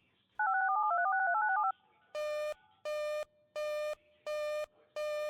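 Emergency alert test tones: a rapid run of touch-tone (DTMF) digits lasting just over a second, then a buzzy beep repeated five times about every 0.7 seconds, the attention signal that leads into the alert bulletin.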